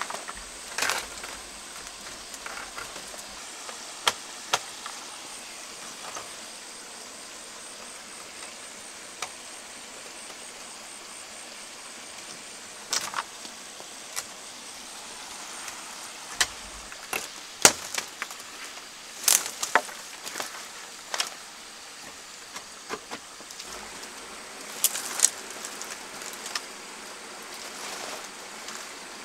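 Scattered sharp clicks and light rattles of a nylon net being dragged off a wire-mesh chicken coop, over a steady background hiss.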